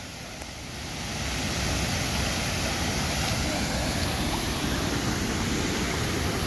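Waterfall rushing: a steady, heavy roar of falling water, deep at the low end. It grows louder over the first second and a half, then holds steady.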